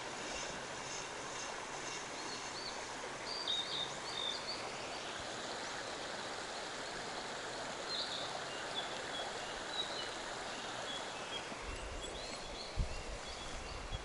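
Steady rushing of a shallow mountain stream flowing over gravel, with short high bird chirps over it now and then. Near the end come a few low bumps.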